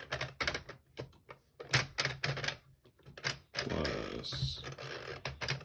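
3D-printed scale model of a Curta mechanical calculator being worked by hand: its plastic mechanism gives a run of sharp, irregular clicks and clacks.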